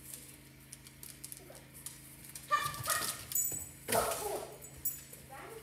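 Dog whining in several short, high cries from about halfway through, with faint clicks and small jingles before them.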